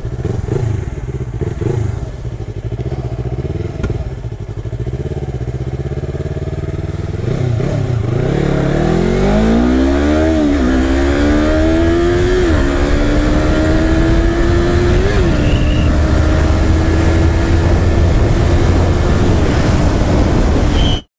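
Yamaha sport motorcycle's engine heard from the rider's seat, running at low speed, then accelerating hard about eight seconds in. Its pitch climbs and drops back with three quick upshifts, then holds high and slowly rising as the bike picks up speed.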